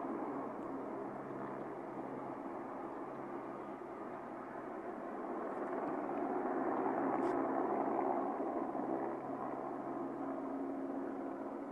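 Steady engine drone with a low hum under it, swelling louder for a few seconds past the middle and then easing back.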